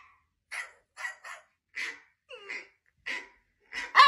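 Husky making a string of short, breathy huffs, about two a second, then breaking into a loud, wavering husky 'talking' howl near the end.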